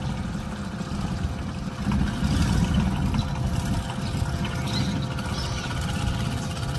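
Long-tail boat engine running at low speed, a steady low rumble that grows a little louder about two seconds in as the boat edges forward.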